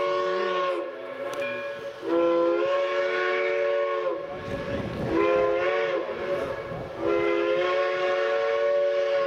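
Chime steam whistle of a 2-8-2T steam tank locomotive (Mount Rainier Scenic Railroad No. 17) sounding the grade-crossing signal: the end of a long blast, then a long, a short and a long blast. Several tones sound together as a chord.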